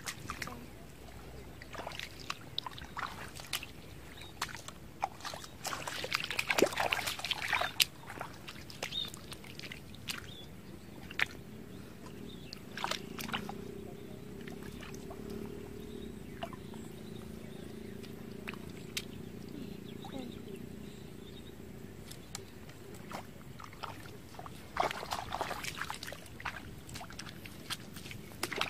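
Bare feet wading through shallow muddy water: sloshing, splashing steps with short sharp splashes throughout, heavier about six seconds in and again near the end. A faint steady hum sits under the middle stretch.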